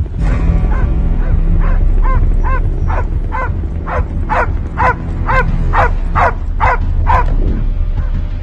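A dog barking over and over, about a dozen short barks at roughly two a second, with a low droning music score beneath.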